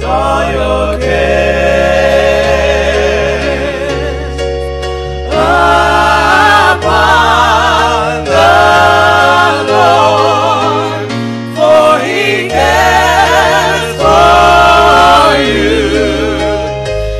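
Gospel music: a choir singing long, held notes with vibrato in phrases of a few seconds, over a steady low accompaniment.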